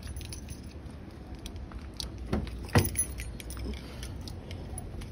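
Small metal pieces jingling and clicking, with two sharper clicks about two and a half seconds in.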